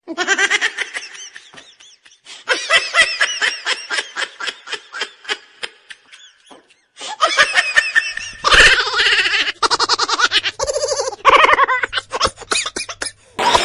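Laughter in quick repeated ha-ha pulses, coming in three stretches with short breaks about two seconds in and about seven seconds in.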